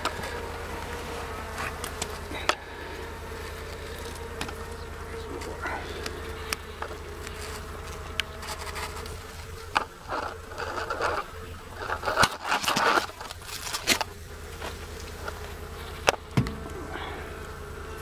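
A large honey bee colony buzzing steadily as a continuous hum. Sharp knocks and scrapes come through it now and then, with a cluster of louder rustling bursts about halfway through.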